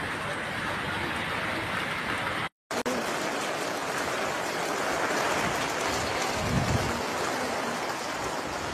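Steady hiss of heavy rain, breaking off for a moment about two and a half seconds in, with a short low rumble about six and a half seconds in.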